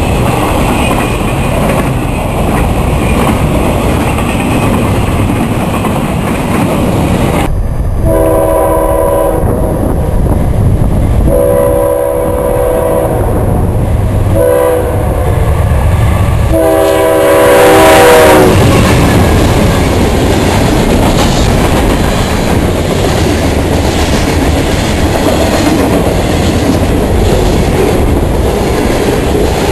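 Freight train cars rolling past with a steady rumble and clatter of steel wheels on rail. After about eight seconds a diesel locomotive sounds its multi-chime air horn in two long blasts, a short one and a final long one, the standard warning for a grade crossing, and the train rolls by with the same steady wheel noise.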